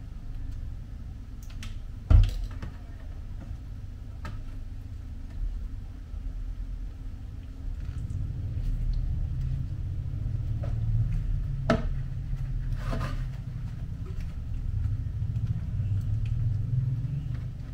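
Kitchen handling noises while a burrito is assembled: a sharp knock about two seconds in, then a few light clicks and rustles as the tortilla is folded and rolled, over a low steady rumble that grows stronger partway through.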